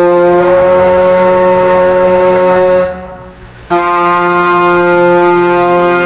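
Ship's horn sounding a loud, steady blast that fades out about three seconds in. After a short gap a second blast starts abruptly and holds.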